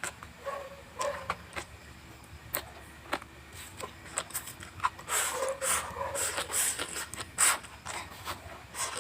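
Close-up chewing of crunchy raw vegetables: scattered sharp clicks and small mouth sounds, then a dense run of crisp crunching from about five seconds in.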